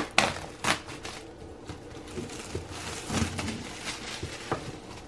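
Plastic shrink-wrap being peeled and crinkled off an iPad box, in several short rustling bursts with small knocks from handling the box.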